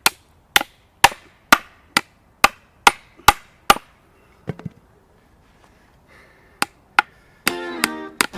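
Sharp wooden knocks about two a second: a baton striking the spine of a Hultafors OK4 knife to drive it through wood. After a pause there are a few more knocks, and plucked-string music starts near the end.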